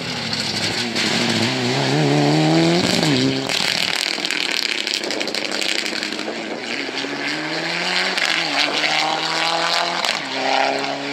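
Mitsubishi Lancer Evolution rally car's turbocharged four-cylinder engine accelerating hard, its pitch climbing and dropping at each upshift: once about three seconds in, then twice more near the end, over a steady loud hiss.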